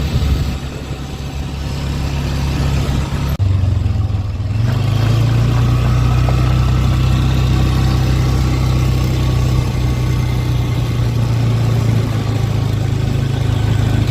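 Vehicle engine running with a steady low drone, its note stepping up slightly about four seconds in, then holding; it cuts off abruptly at the end.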